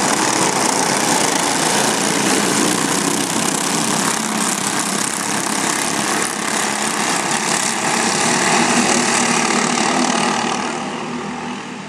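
Small go-kart engine running at a steady pitch under a loud rushing hiss, fading away near the end.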